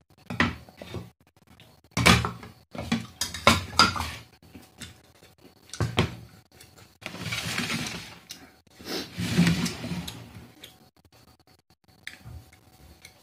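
Ceramic plates and bowls knocking and clinking on a table as they are moved around, a run of sharp knocks followed by two longer, noisier stretches after the middle.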